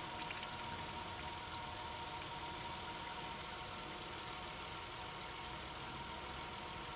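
2017 Nissan Altima engine idling steadily, with a faint steady high tone running through it.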